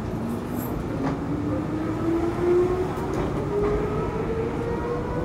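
Electric commuter train pulling away from a station: the traction motor whine rises steadily in pitch as it accelerates, over the rumble of the car.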